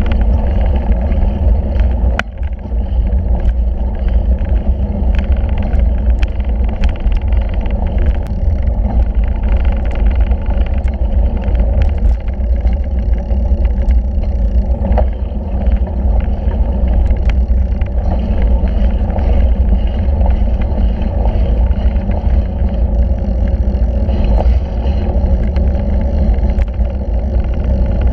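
Bicycle ride heard from a camera mounted on the handlebars: steady, heavy wind rumble on the microphone, with scattered clicks and rattles from the bike rolling over the boardwalk and trail.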